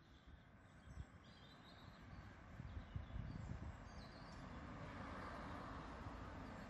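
A car passing on the road, its tyre and engine noise growing steadily louder from about two seconds in, with a few bird chirps near the start and again partway through.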